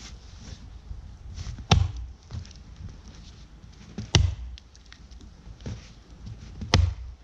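Three axe blows chopping into the trunk of a dead tree, about two and a half seconds apart.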